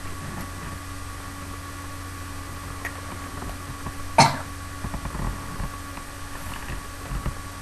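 A single short cough about four seconds in, over a steady low electrical hum, followed by a few faint low bumps.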